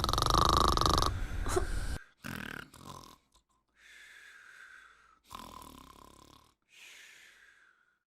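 Heavy snoring: one loud, rattling snore for about two seconds, then several shorter, much quieter snoring breaths with pauses between them.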